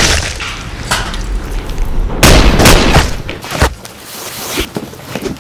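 Sound effects of heavy impacts: a sharp hit about a second in, then two loud booming hits a little after two seconds. A rising hiss follows near the end.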